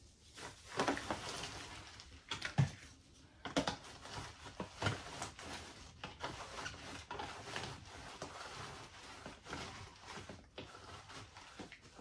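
Hands packing dry sphagnum moss into a clear plastic moss pole tube: irregular rustling and crinkling of the moss, with a few soft knocks from the plastic tube.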